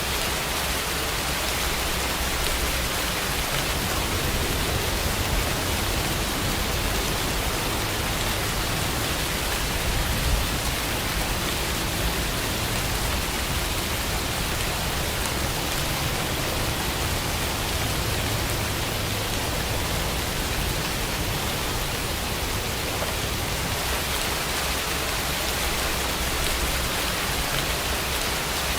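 Steady rain, an even hiss of falling water with a faint low rumble underneath.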